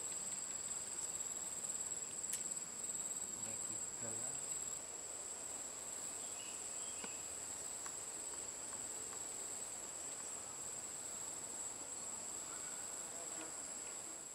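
Steady high-pitched insect trill, one unbroken note, over a faint background hiss.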